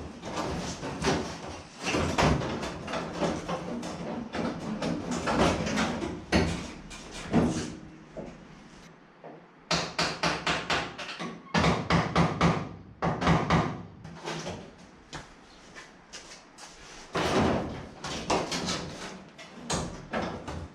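Repeated bangs and rattles of car body sheet metal, some in quick runs of several blows, as the cut-out rear quarter panel of a 1967 Chevelle is worked loose.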